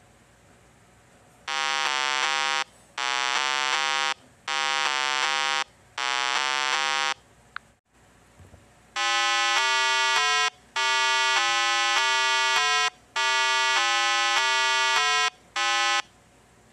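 Buzzy 8-bit style electronic tones, a chiptune-like run of stepped notes in blocks of about a second with short gaps between them. They pause for a moment near the middle, then go on in a second run of longer blocks ending in a short one.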